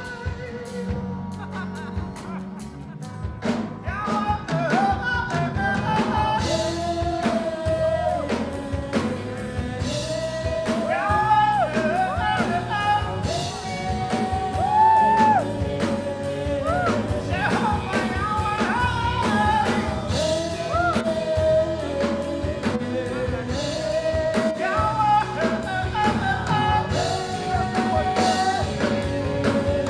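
Live band music: a lead vocalist singing a melody over acoustic guitar, electric bass, keyboard and a steady beat. The band gets louder and fuller about three and a half seconds in.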